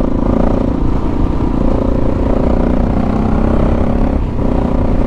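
KTM 640 Adventure R's single-cylinder engine running under way while riding, its pitch shifting with the throttle and dipping briefly a little after four seconds, over a heavy low rumble.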